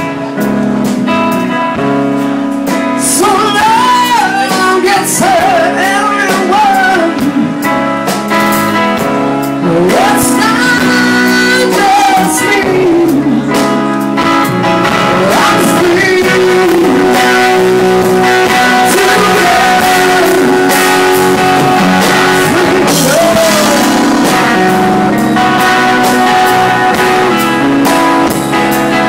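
Music: singing over guitar, loud and steady.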